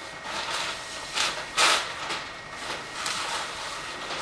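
Paper wrapping of a steamed silk-scarf bundle rustling and crinkling as it is unwrapped and handled, in several short bursts, the loudest about a second and a half in.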